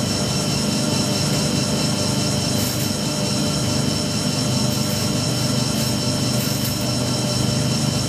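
IPSO 25 lb commercial front-load washing machine running a hot wash: a steady motor hum and drum rumble with a faint high whine.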